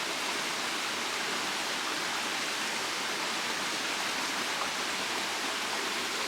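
Steady rush of a jungle waterfall: an even, unbroken hiss of falling water.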